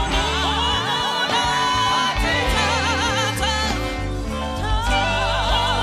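Music: a song with several voices singing long notes with a wide vibrato over a steady bass line.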